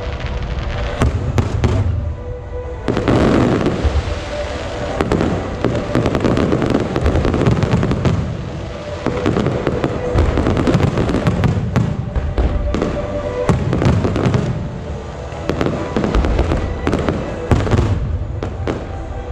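Aerial firework shells bursting in quick, irregular succession, with booms and crackling.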